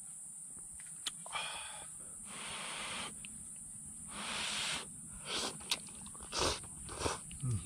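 A person blowing on and slurping hot ramen noodles: a series of short, airy bursts about a second apart, with no words.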